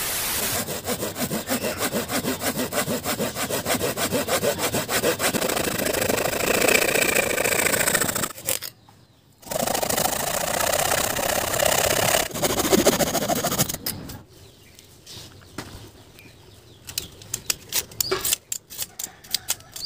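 Hand saw cutting through a green tree branch in quick, even back-and-forth strokes, with a short pause about eight seconds in and a stop about fourteen seconds in. Near the end come short scraping strokes of a utility knife shaving bark and wood off the branch.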